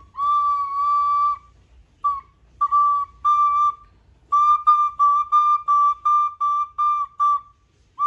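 A recorder played by a child, sounding the same high note over and over: one long held note, a few short ones, then a run of about nine quick notes, roughly three a second.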